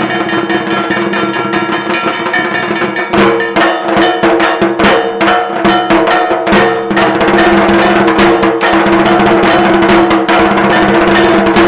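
Puja percussion: rapid metal bell strikes with drumming, starting about three seconds in, over steady pitched music.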